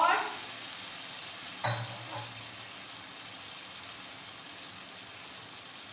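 Chicken shashlik sauce with vegetables sizzling and bubbling in a frying pan: a steady hiss.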